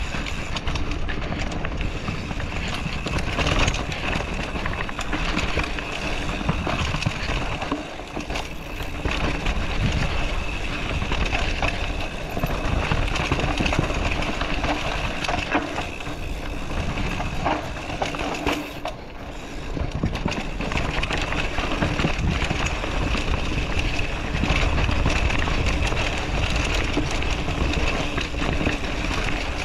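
Mountain bike descending a dirt forest singletrack: continuous rumble and clatter of the tyres, chain and frame over the rough trail, with wind noise on the microphone. The noise eases briefly twice.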